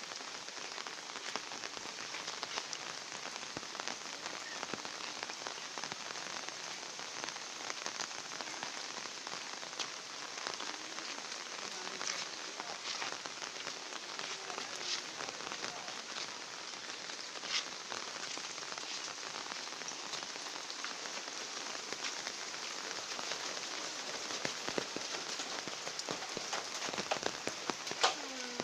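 Steady rain falling on a hard surface, a continuous hiss with many small drop ticks.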